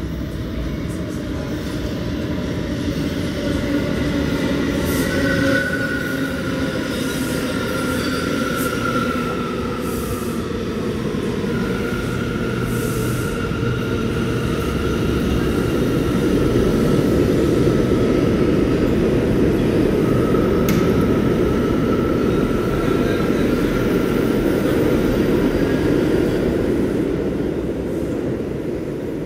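New York City subway trains in a station: a local pulls in along the platform with drawn-out wheel squeals, and an express runs through without stopping, a steady loud rumble that peaks in the second half.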